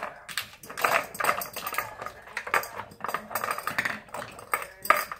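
Hard plastic clicking and rattling as a small dog noses at a plastic treat puzzle toy, shifting its lids and knocking the toy about on a wooden floor: irregular clicks and clatters.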